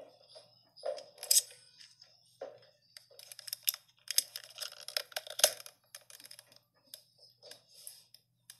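Irregular rustling, crackling and clicking handling noise on a phone's microphone, densest a few seconds in, as the phone is moved and knocked about.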